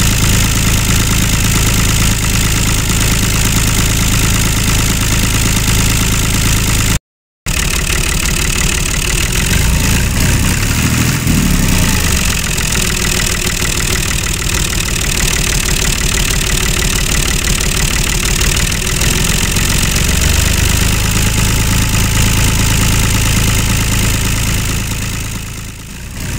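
Tractor engine sound effect running steadily, matched to a toy tractor pulling a loaded trolley. It cuts out for a moment about seven seconds in and dips just before the end.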